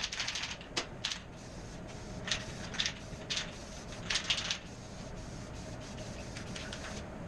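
Aerosol can of matte clear enamel being shaken, its mixing ball rattling fast, then sprayed in several short hissing bursts over the next few seconds.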